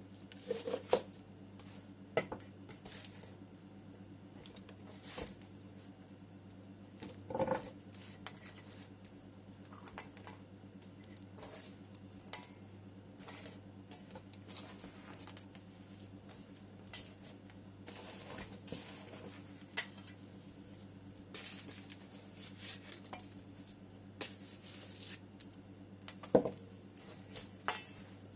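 Hands potting a plant in a ceramic pot: soil rustling and pattering, with scattered sharp clinks and knocks against the ceramic.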